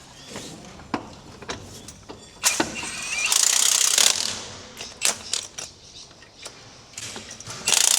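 Metal clanks and knocks as monster-truck axle shafts are slid back into the axle housing, with a pneumatic air tool running loudly for about a second midway and starting up again near the end.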